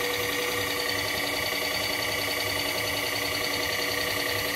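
Bridgeport-type power feed motor running steadily, driving the knee of a Tom Senior milling machine along its Z axis: an even whine with several pitched tones.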